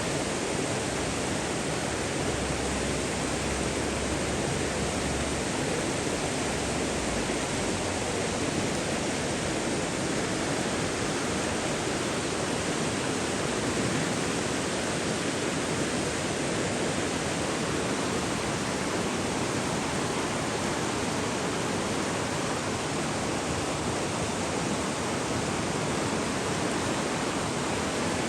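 Running water, a steady, unbroken rushing sound.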